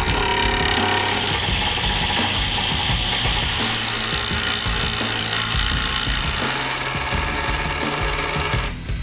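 Cordless impact driver hammering long batten screws into laminated veneer lumber (LVL), a loud, continuous rattling drive with a brief break near the end.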